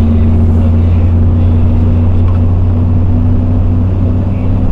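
Vehicle engine droning steadily while driving along a road, a constant low hum with road and wind noise.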